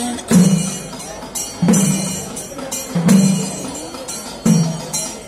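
Kerala temple percussion ensemble playing: a deep pitched drum stroke about every second and a half, with cymbals clashing steadily in between.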